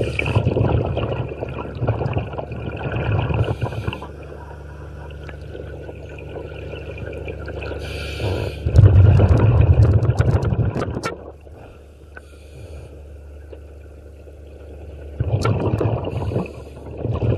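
Scuba diver breathing through a regulator underwater: three long, loud rushes of exhaled bubbles, with short hisses of inhaling between them, over a steady low hum.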